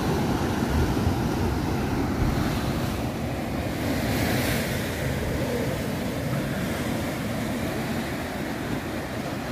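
Heavy sea surf breaking and churning against a rocky lava shore, a steady rush that swells a little about four seconds in, with wind buffeting the microphone.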